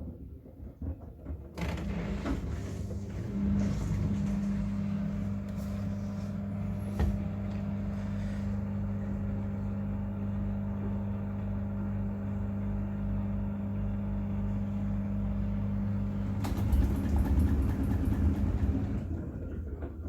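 Miele WCR 870 washing machine running a cotton wash: a steady low hum from the drum motor that starts about a second and a half in, grows louder near the end, then stops.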